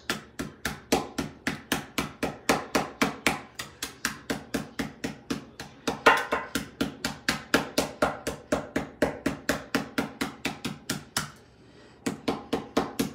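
Rapid, even tapping on the phone's metal parts with a hard tool, about four taps a second, each with a short ring. The tapping breaks off for a moment near the end, then starts again.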